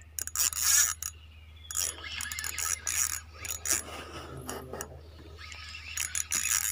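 Small ultralight spinning reel being cranked, its gears whirring and clicking in uneven spurts as line is wound in on a hooked fish.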